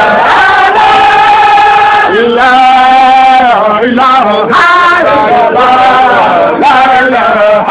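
Men chanting a Sufi zikr, sung phrases held long and sliding in pitch from one phrase to the next.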